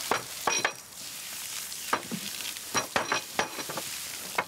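Water from watering cans hissing and sizzling on a red-hot iron wheel tyre as it is quenched, the cooling shrinking the tyre tight onto the wooden wheel. A steady hiss runs throughout, with about ten sharp knocks scattered through it at irregular intervals.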